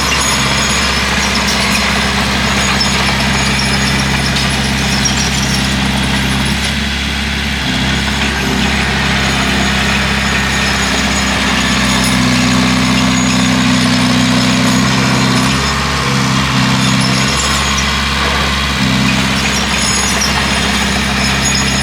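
Bulldozer's diesel engine running continuously, its note shifting several times as the load changes, strongest about halfway through.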